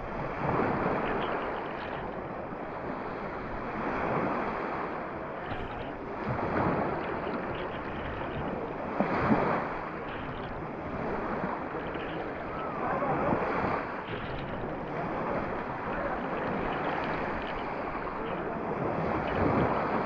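Small sea waves breaking and washing up the sand right at the microphone, in surges every few seconds.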